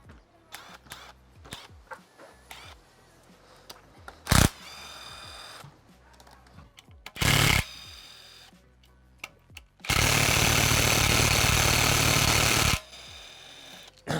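Impact wrench run in bursts on the bolts of a MazdaSpeed 3 engine's timing cover: two short bursts, then a longer one of about three seconds near the end.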